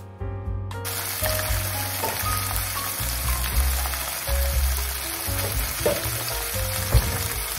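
Chicken breasts sizzling in hot olive oil in a stainless steel frying pan, a steady frying hiss that comes in suddenly about a second in, with one sharp tap near the end.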